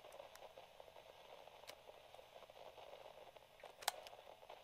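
Faint, light radio static: a low hiss with small crackles and a few tiny clicks, then one sharp click near the end.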